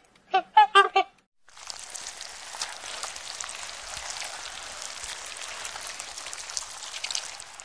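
Flamingos honking: four short, loud calls in the first second. After a brief gap, a steady underwater crackling hiss with fine clicks takes over to the end.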